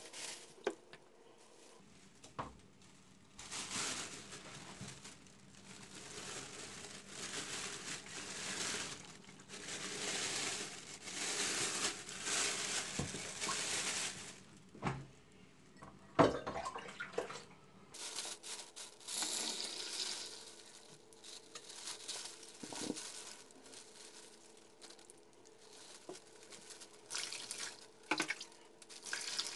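Thin plastic bag rustling and crinkling as it is pulled over a wet plastic coolant tank, with water splashing and sloshing in a plastic basin. It comes in long crackly stretches, the longest from a few seconds in to about halfway, with scattered sharp ticks and rustles after.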